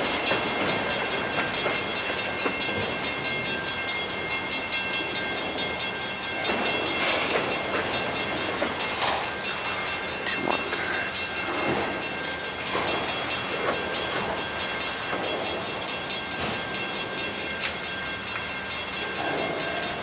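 Freight train autorack cars rolling past on the rails as the train pulls into the yard. The wheels make a continuous rumbling noise that swells and fades, with steady high-pitched ringing tones running through it.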